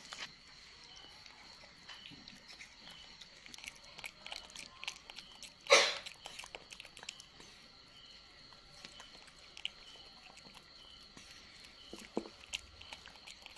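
Baby monkey chewing soft fruit, with faint wet smacking and small mouth clicks, over a faint steady high tone. One short, loud thump about six seconds in.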